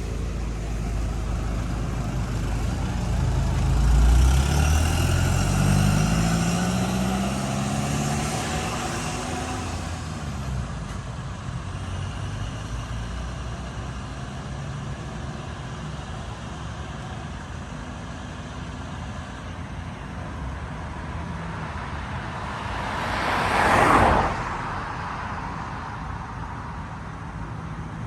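A motor vehicle's engine accelerating, its pitch climbing steadily for several seconds, over road traffic noise. Later a second vehicle passes close by, swelling loudly and then fading.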